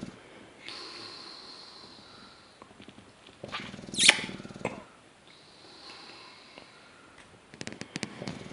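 English bulldog snoring in its sleep, one loud rasping snore about four seconds in, with breathy exhales before and after it. A few small clicks near the end.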